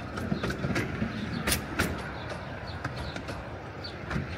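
Narrow-gauge train carriages rolling past on the track: a steady rumble with irregular sharp clicks as the wheels run over the rail joints.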